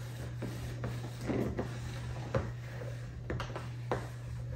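Plastic Ninja Creami pint containers being slid around and set down on a granite countertop: a series of irregular knocks and scrapes over a steady low hum.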